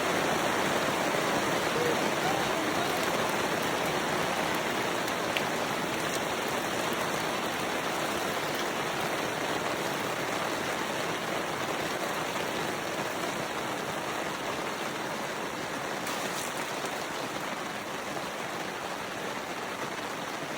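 Steady rain falling, an even hiss that slowly grows fainter.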